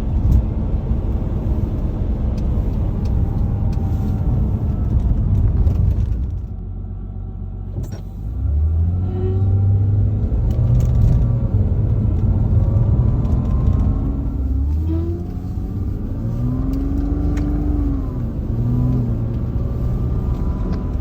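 A car driving with a whine that rises and falls in pitch as it accelerates and decelerates, over steady engine and road rumble. The owner likens the whine to an angle grinder. The sound eases off briefly about a third of the way in, then picks up again.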